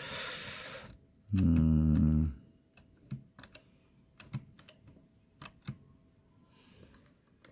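Blickensderfer 7 typewriter mechanism worked by hand: a string of scattered sharp mechanical clicks as keys and the escapement are pressed and released. Near the start there is a short rushing noise, then a brief hummed voice sound, the loudest thing here.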